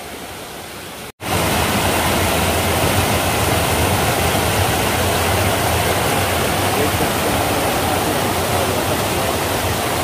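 Steady rushing of falling and flowing water from a waterfall and its stream. It is fainter for about the first second, then after a brief cut it comes in much louder and stays even.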